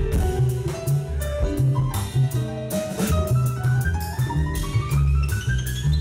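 Live jazz band playing an instrumental passage, with drum kit and cymbals and low bass notes beneath, and a quick run of notes climbing steadily in pitch through the second half.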